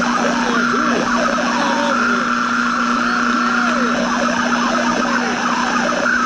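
Old radio static: a steady hiss with a constant low hum and a higher whistle tone, over which many short warbling squeals glide up and down in pitch.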